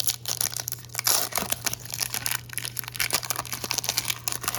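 Foil booster pack wrapper crinkling and tearing as the pack is opened and handled, a dense run of short crackles, over a steady low hum.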